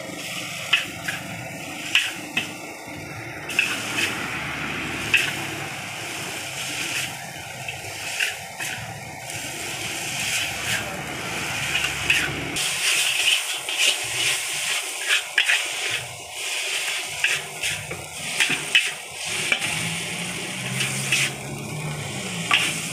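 Fried noodles sizzling in a hot wok while a metal spatula scrapes and tosses them, with repeated sharp clacks of the spatula against the wok.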